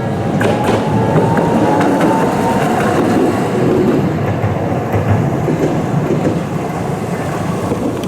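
A Toei Arakawa Line tram passing close by, its wheels rumbling and clattering on the rails. A motor whine rises over the first couple of seconds. The sound cuts off suddenly at the end.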